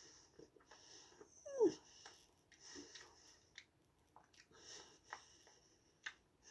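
Faint breathing close to the microphone, a soft breath about every two seconds, with a few small clicks as the knife and food are handled. About a second and a half in comes one short falling squeak, the loudest sound here.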